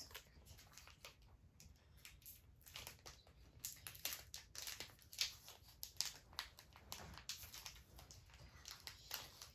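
Foil wrapper of a Pokémon card booster pack crinkling and tearing as it is worked open by hand: a faint scatter of crackles, thicker from a few seconds in.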